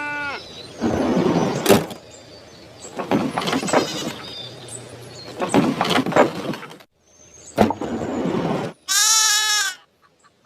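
Farm-animal sound effects: a horse giving three rough, noisy calls, each about a second long, spaced a couple of seconds apart. Near the end comes a short wavering bleat of a sheep.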